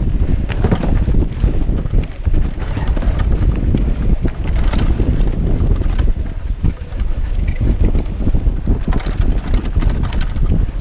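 Mountain bike ridden fast over dirt singletrack: steady wind buffeting the microphone, with tyre rumble and the bike rattling and clicking over bumps.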